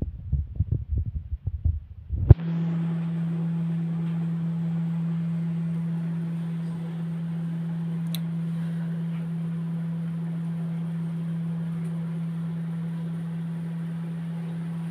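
Irregular low thumps for about two seconds. Then, after a sharp click, a steady low hum with a faint hiss over it holds evenly.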